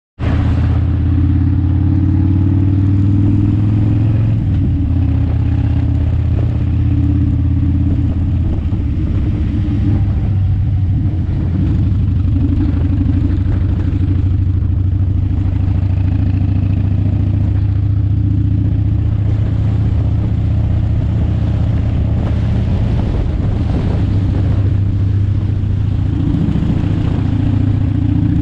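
Vehicle engine running steadily while driving, heard from on board, a low drone whose pitch rises and falls a few times.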